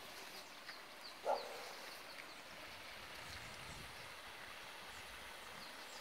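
A dog barks once, about a second in, with faint high chirps in the background.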